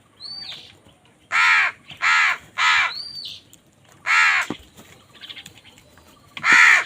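Crows cawing: about five loud, harsh caws in irregular succession, three of them close together between one and three seconds in, with softer calls and a brief quiet rattle between them.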